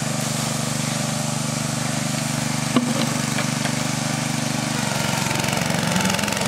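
Small engine on a BLOTTER water-removal roller machine running steadily, with a single sharp knock about three seconds in. Its note shifts about five seconds in, as the machine is set moving onto the wet tarmac.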